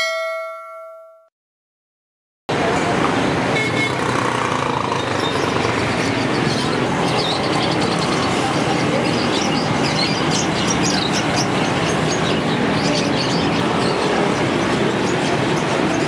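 A notification-bell ding that rings out for about a second, then, after a short silence, busy street noise starts abruptly: traffic running past with occasional car horns and people's voices.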